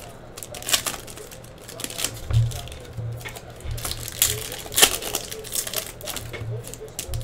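Trading cards handled by hand as packs are opened and the cards are sorted through: an irregular run of sharp flicks and snaps of card stock and foil wrapper, with a few dull low thumps.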